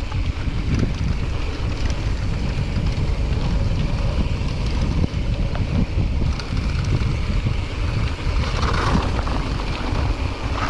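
Wind buffeting the microphone of a camera on a mountain bike being ridden along a trail: a loud, steady low rumble.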